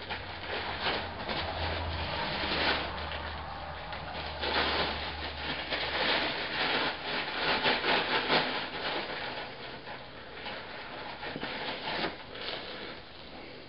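Hands taking and working a lump of soft clay: irregular rubbing and rustling scrapes of uneven strength, as the clay is pulled off and rolled into a coil for reinforcing a slab joint.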